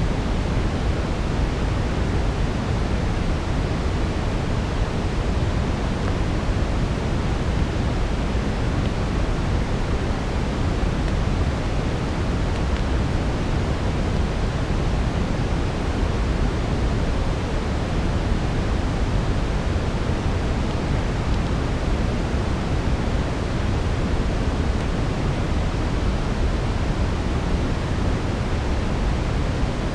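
Steady brown noise: an even, deep hiss, heaviest in the low end and dull at the top, with no change over the whole stretch.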